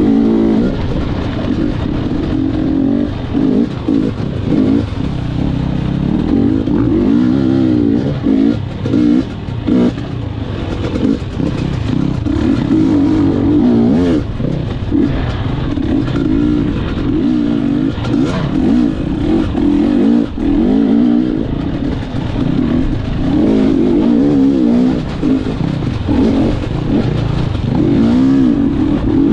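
Gas Gas EC 250 two-stroke enduro bike engine revving hard as it is ridden off-road. The pitch rises and falls continually with the throttle, with brief dips where the throttle is closed.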